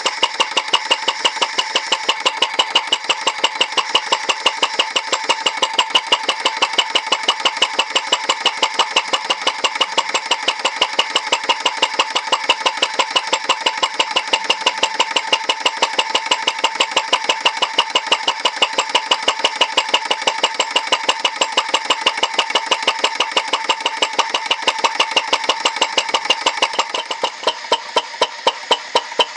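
Alyn Foundry CHUK 2 model engine running steadily: an even, rapid clicking of its valve gear and piston, several strokes a second, over a steady metallic ringing. Near the end the background drops and the clicks come slower and more distinct.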